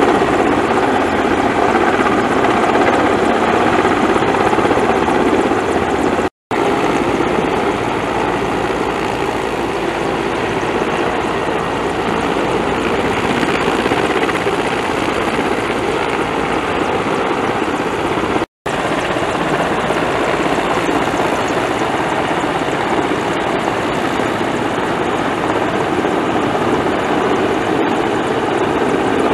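Mil Mi-8-family military transport helicopter hovering low overhead, its main rotor and turbines running loudly and steadily. The sound cuts out completely twice for a moment.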